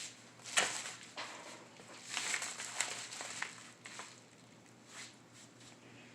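Cardboard boxes and packaging being handled: irregular rustles, scrapes and light knocks, busiest in the first three and a half seconds, then sparse.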